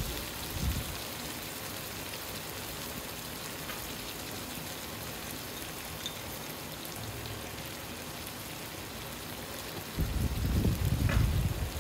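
Mutton pieces in yogurt gravy frying in oil in a wok on a high flame, a steady even sizzle. A low rumbling comes in near the end.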